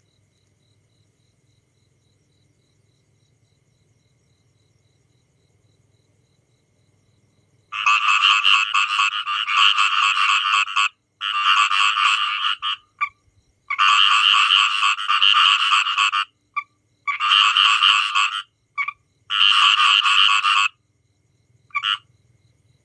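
Frogs calling. After several seconds of only a faint low hum, loud bouts of rapid pulsed croaking begin about a third of the way in. Each bout lasts one to three seconds, with short pauses and a few brief single calls between them.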